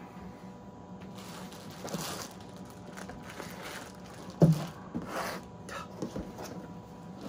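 A cloth towel rustling and rubbing in several swishes, with one dull thump about four and a half seconds in and a few lighter knocks near the end as a cardboard box is shifted on a folding table.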